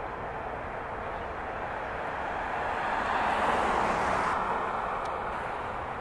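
Steady urban traffic hum, with a vehicle passing that swells to a peak about three and a half seconds in and then fades.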